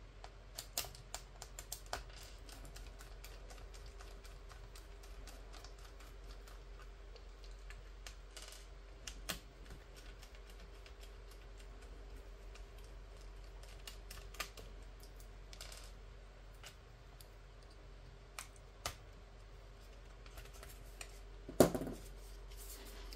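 Scattered light clicks and taps of fingers handling a laptop's internal battery and plastic chassis, with one louder knock near the end as the battery is lifted out of the laptop base.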